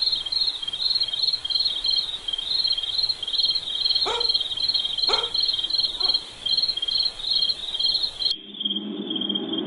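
Crickets chirping in a fast, even rhythm, as a night-ambience sound effect, with three quick rising sweeps about a second apart midway. Near the end the chirping abruptly thins and a low drone comes in.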